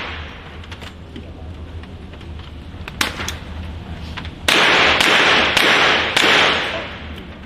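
Gunshots, loud and echoing: a single shot about three seconds in, then four more in quick succession about half a second apart, each crack ringing on afterwards.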